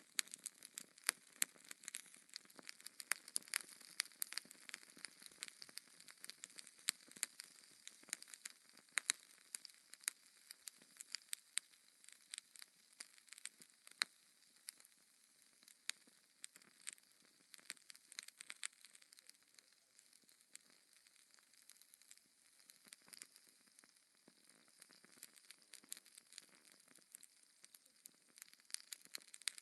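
Fire burning in a fireplace, crackling quietly with frequent sharp, irregular pops.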